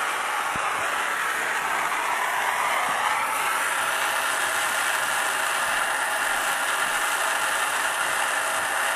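Handheld gas torch flame hissing steadily as it heats a copper pipe fitting for soldering; the hiss grows brighter about three seconds in.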